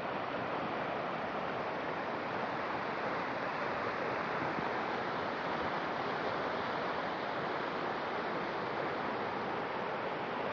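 Flash-flood river water rushing steadily, an even, unbroken noise of fast-flowing water.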